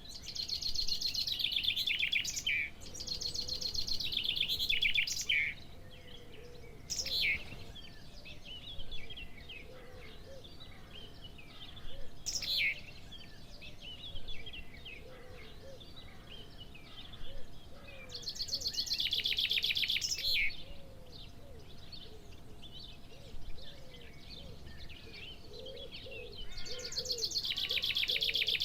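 Wild birds singing: several fast trilled song phrases, each lasting two to three seconds and repeated at intervals, with short downward-sweeping calls in between.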